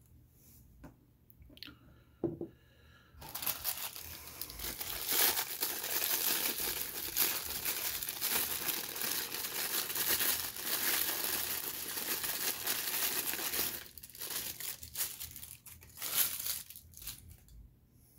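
White packing paper crinkling as it is handled and unwrapped, after a few light clicks. The crinkling starts about three seconds in, runs dense for about ten seconds, then thins to a few scattered crinkles near the end.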